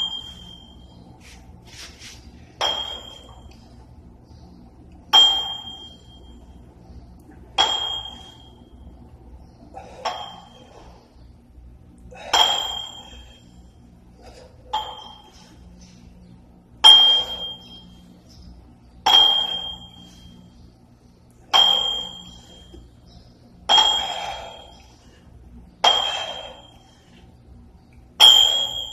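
Plate-loaded iron dumbbells clinking with a short metallic ring at the top of each overhead press, about once every two and a quarter seconds, a dozen times in all.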